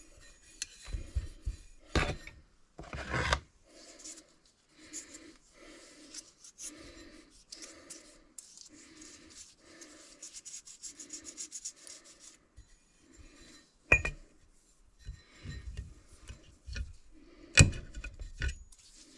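Metal parts of a hydraulic bottle jack being handled during reassembly: a run of even rubbing or scraping strokes, about two a second, broken by a few knocks, the loudest near the end.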